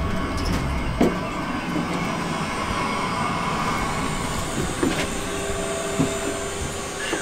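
Steady mechanical hum from the running tool truck, with a few short knocks as someone steps up into it; a steady humming tone joins about five seconds in.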